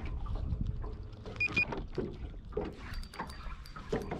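Small waves lapping and slapping against a boat hull, with light knocks. Two short high beeps sound about one and a half seconds in.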